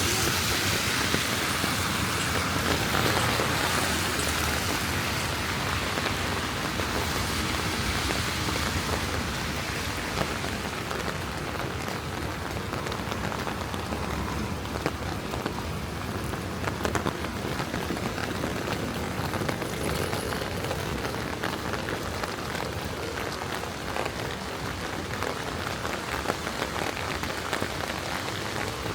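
Steady rain falling on wet city pavement, an even hiss dotted with many small drop ticks. The hiss is louder and brighter for the first several seconds, then settles lower by about ten seconds in.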